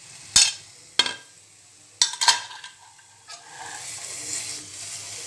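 Several sharp clicks of a steel spoon knocking against the plate and the wok as ginger paste goes in. Then, from about three seconds in, capsicum and garlic sizzle steadily in oil in a nonstick wok as a spatula stirs them.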